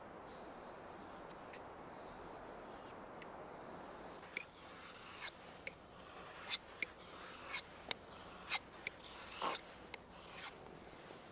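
A knife blade scraping and cutting into the wood of a fallen log in about a dozen sharp, uneven strokes, starting about four seconds in, over a soft steady background hiss.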